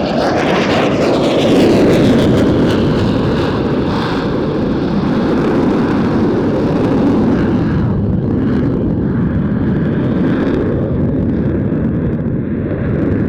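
Eurofighter EF-2000 jet fighter flying past, its engines loud and steady, with a falling whine in the first few seconds as it passes.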